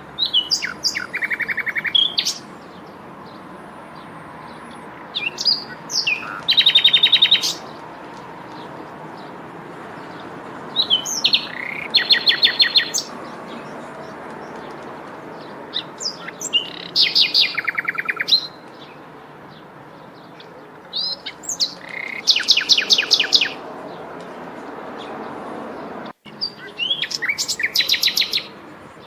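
A songbird singing the same short song six times, about every five seconds: each starts with a few sharp rising notes, then a fast, slightly falling trill of rapid notes. A steady hiss runs underneath.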